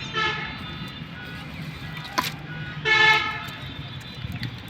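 A vehicle horn honking twice in short steady blasts about three seconds apart, with a sharp click between them.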